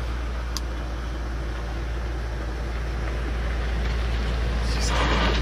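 Steady low outdoor rumble with a faint hiss, slowly growing louder, with one short click about half a second in and a brief rustle near the end.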